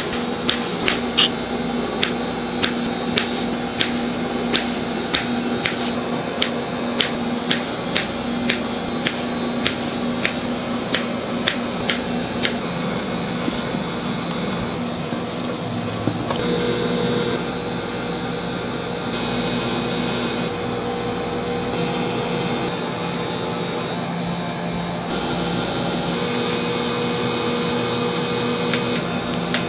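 Knife cutting through strawberries onto a cutting board, a sharp tap about twice a second, over a steady mechanical hum. The tapping stops about halfway through, leaving the hum.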